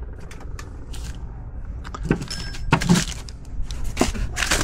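Small metal parts and tools handled: scattered light clicks, clinks and knocks, with a brief bright metallic ring about two and a half seconds in.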